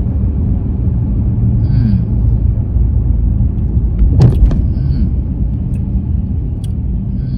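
Steady low road-and-engine rumble inside a moving car's cabin, with one brief louder sound a little over four seconds in.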